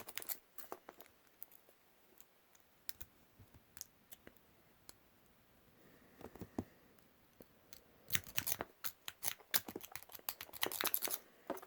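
Lock pick and tension wrench working in a padlock: scattered small metallic clicks and scrapes, with denser flurries of clicking about eight seconds in and near the end.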